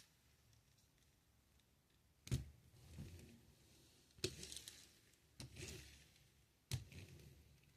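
Handling of a plastic K'nex kart toy: three sharp plastic clicks or knocks about two seconds apart, with soft rubbing and rustling between them.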